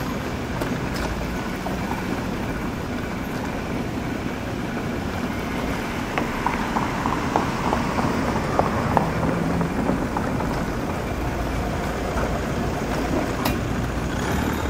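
Steady street-traffic and riding noise picked up by a camcorder on a moving tricycle, with a run of light clicks and rattles midway.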